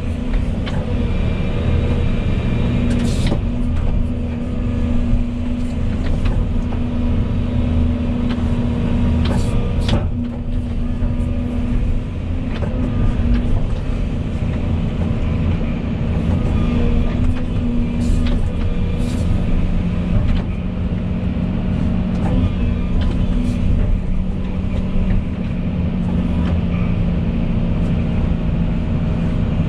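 Volvo EC220E excavator's diesel engine running steadily under working load, with a thin steady whine above the drone and a few sharp clicks.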